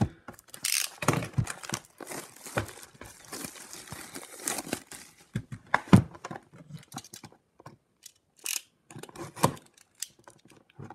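Plastic shrink wrap being torn and crumpled off a cardboard trading-card hobby box, an irregular crackling and rustling with several clicks and a sharp knock about six seconds in.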